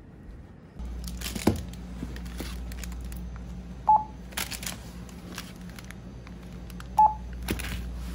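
Self-checkout barcode scanner giving two short electronic beeps about three seconds apart as ice cream packages are scanned. Plastic wrappers crinkle between the beeps over a steady low hum.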